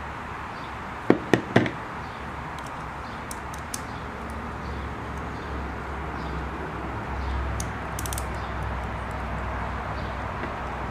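Three sharp clicks in quick succession about a second in, then a few faint ticks of a screwdriver being worked onto the set screw of a sewing machine's hook drive gear, over a low steady hum. This is the start of adjusting the hook timing to cure skipped stitches on the right-hand side.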